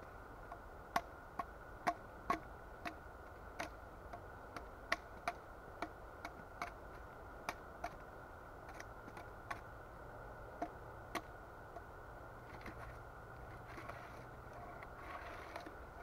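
Campfire crackling and popping, a quick irregular run of sharp snaps as damp raw firewood burns and smokes heavily. The pops thin out after about eleven seconds, leaving a soft rustling.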